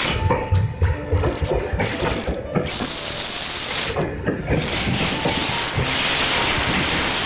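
Freight container wagons rolling past close by, wheels knocking over the rail joints with a steady high-pitched wheel squeal over the rumble.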